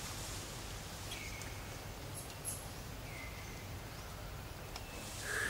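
Forest ambience: a steady low background rumble with a few faint, short high chirps, about a second and three seconds in.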